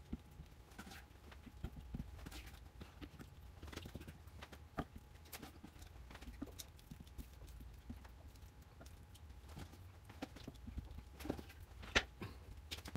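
Faint, scattered taps and clicks of kitchen tongs and fish fillets being set down in a glass baking dish, with a couple of sharper knocks near the end.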